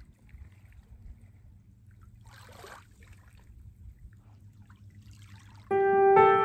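Small waves lapping faintly at a sand-and-pebble shoreline, with a soft wash about two seconds in and another near five seconds. Near the end, piano music comes in with held notes and is louder than the water.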